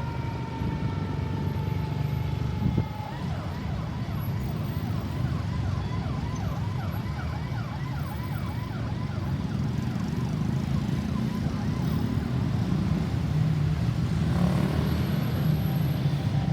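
Ambulance electronic siren: a long wail tone sliding slowly down, then about three seconds in switching to a fast yelp of quick rising sweeps, a few a second, that fades away by about ten seconds. A steady low rumble of vehicle engines and traffic runs underneath.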